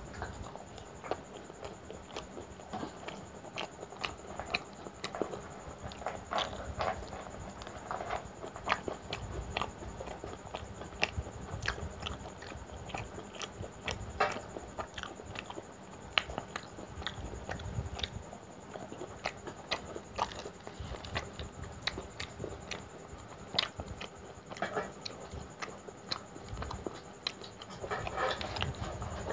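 Close-miked chewing and mouth sounds of a person eating luchi with mutton curry by hand. Many sharp, irregular clicks and smacks run through it.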